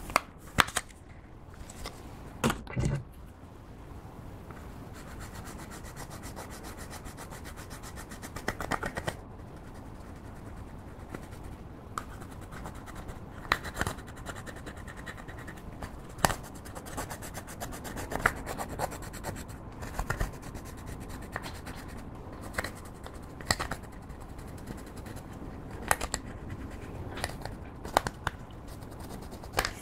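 A plastic stick scraping and crushing pressed eyeshadow in a compact: a dry, crumbly scratching, with sharp clicks every few seconds. A few clicks near the start as the compact is handled and opened.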